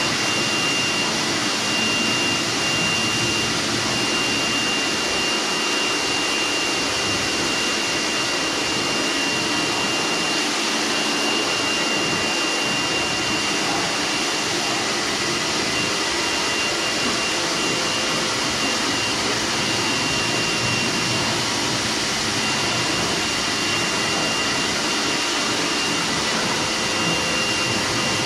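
Kärcher electric pressure washer running steadily, a high steady whine over the hiss of its water jet spraying onto a motorcycle during the rinse.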